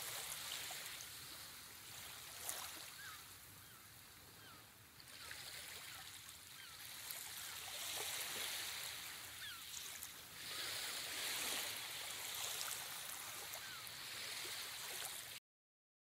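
Faint ocean surf, a steady wash that swells and ebbs, with short rising bird chirps scattered through it. It cuts off suddenly shortly before the end.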